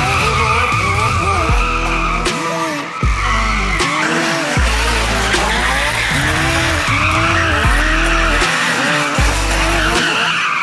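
Honda S2000 doing donuts: tyres squealing on pavement and the engine revving up and down over and over. Underneath is music with a heavy bass line that drops out briefly a few times.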